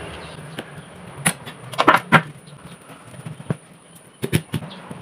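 Kitchen knife chopping through corn cobs onto a wooden chopping board: scattered sharp knocks, a cluster of them about two seconds in and another pair near the end.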